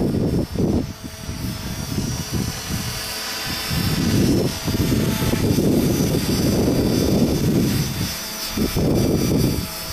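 Belt CP electric collective-pitch RC helicopter in flight, its steady high motor and rotor whine running under loud, gusty wind buffeting on the microphone.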